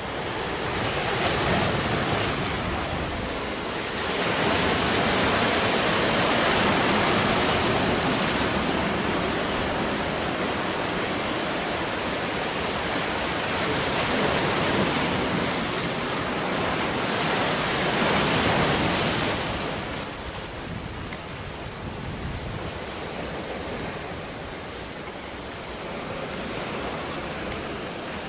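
Sea surf surging and breaking against shoreline rocks, a continuous rush that swells and eases every few seconds. It is loudest in the first two-thirds and softer near the end.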